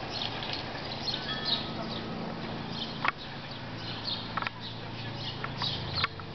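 Small songbirds chirping repeatedly over a low steady hum, with three sharp clicks at about three, four and a half and six seconds in.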